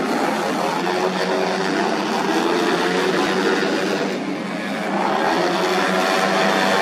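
Tuned 130 cc automatic scooters racing, their engines running at high revs, the sound dipping briefly about four seconds in and then rising again as bikes pass.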